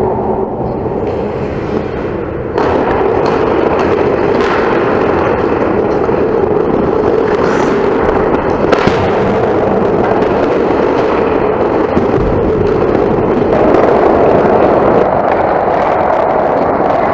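Ice hockey play on a rink: a steady wash of skating and rink noise, with a few sharp knocks of sticks and puck.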